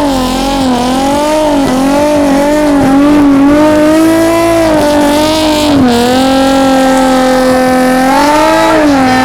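Nissan 350Z's V6 engine held at high revs during a burnout, its pitch wavering up and down as the spinning rear tyres slip, with a steady dip and hold about six seconds in.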